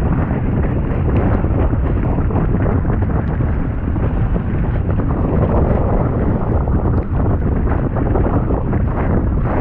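Heavy wind buffeting on the camera microphone of a mountain bike riding down a wet gravel track, over a steady rumble of tyres on loose stone, with many small ticks of grit and stones under the wheels.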